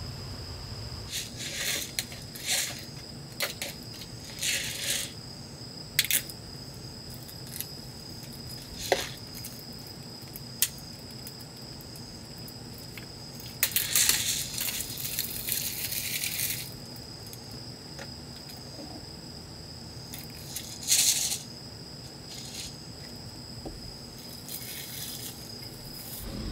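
Packaging crinkling and rustling in short bursts, with a few sharp clicks and taps, as a cup noodle is unwrapped and opened; the longest rustle comes about halfway through. Underneath runs the steady hiss of a gas canister stove heating a pot of water, and a constant high-pitched tone.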